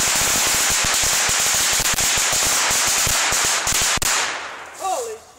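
A 1000-count string of firecrackers going off in a rapid, dense crackle of bangs that stops abruptly about four seconds in.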